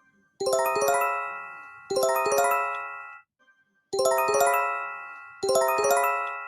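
Electronic bell-like alert chime: a quick run of rising notes that ring out and fade. It sounds four times, in two pairs with a short pause between the pairs.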